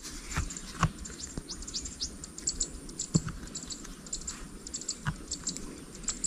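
Outdoor wildlife chirping: many short, high chirps in an irregular patter, with a few soft knocks about half a second in, around three seconds in and near five seconds.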